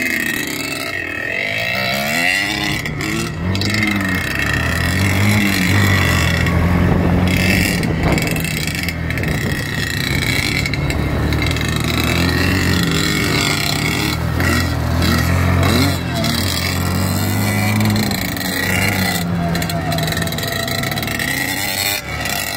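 Dirt bike engines running under way, the pitch rising and falling again and again as the riders open and close the throttle and shift.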